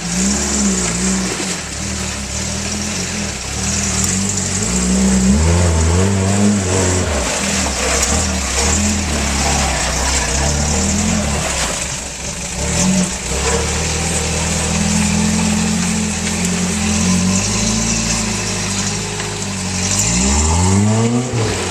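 Off-road 4x4 truck engine revving up and easing off over and over as it works along a rough dirt track. Near the end there is a quick, sharp rev that climbs and drops.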